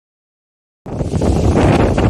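Wind buffeting the microphone outdoors, a loud rumbling noise that cuts in abruptly about a second in after dead silence.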